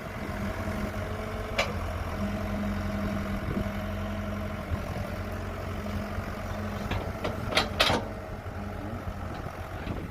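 Kobelco excavator's diesel engine running steadily as it works, with a sharp knock about one and a half seconds in and a quick cluster of knocks near the end.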